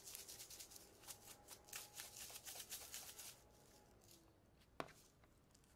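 Dry spice rub and herbs rattling in a plastic shaker jar as it is shaken to mix them: faint, quick rattles that stop about three seconds in, then a single click.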